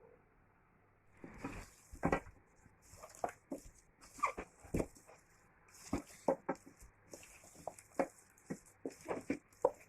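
Irregular series of short knocks and taps, a few a second, starting about a second in.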